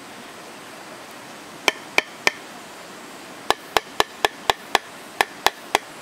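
Hammer blows on the head of a steel chisel held upright in a green bamboo tube. There are three quick strikes, a pause of about a second, then eight more at about four a second, each with a short metallic ring.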